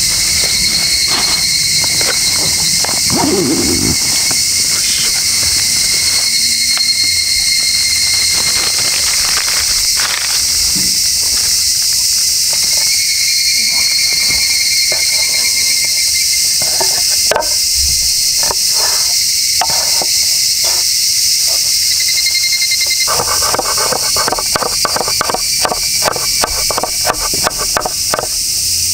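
A loud, steady chorus of higurashi (evening cicadas) singing. Near the end a knife starts chopping on a wooden cutting board, a quick run of about four strokes a second as it minces shiso leaves finely.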